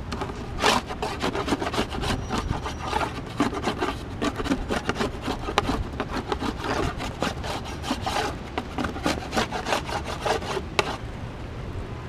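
Metal hive tool scraping wax off a wooden beehive frame in quick, irregular strokes, stopping shortly before the end.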